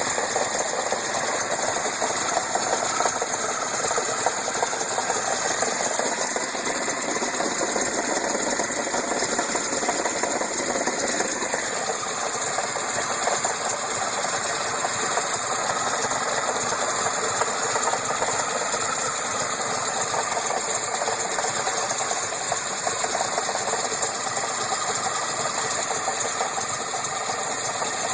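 Datsun engine running with a rapid, steady mechanical clatter: the odd knocking noise being tracked down. The sound thins out in its lower range about eleven seconds in.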